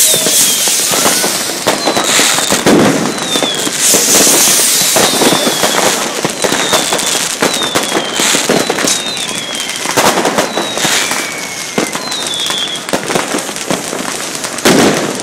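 Many fireworks and firecrackers going off continuously: a dense mix of bangs and crackling, with short whistles falling in pitch several times.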